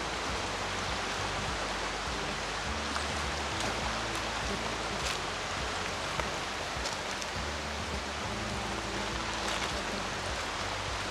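Steady rushing of river water, with a few faint clicks.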